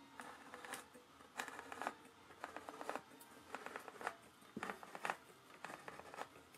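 Can opener cutting around the lid of a sealed metal oil-can-style card tin: faint, irregular clicks and scrapes.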